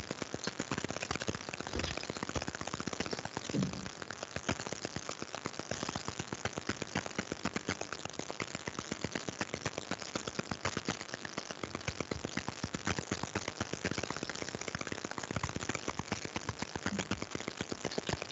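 A rapid, even run of small clicks, several a second, with a soft thump about three and a half seconds in.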